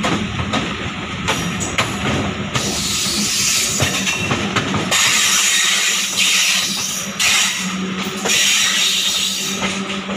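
Background music with drums and cymbals.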